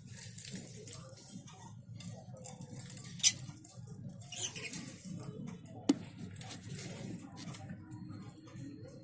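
Small caged pet birds chirping now and then over light clattering and rustling, with a sharp click a little after the middle.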